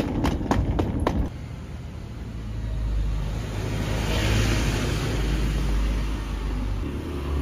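Footsteps on a paved sidewalk at a walking pace, about three steps a second, stopping abruptly just over a second in. Then steady city street noise with a low rumble of traffic.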